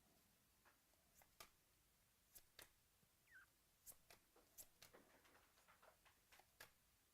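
Near silence with a scattering of faint, short clicks and light scratches: trading cards being flicked and slid against each other as a pack is sorted by hand.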